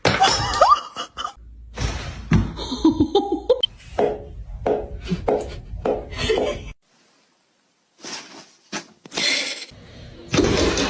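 People laughing in short repeated bursts, which cut off suddenly about seven seconds in before other sounds start again.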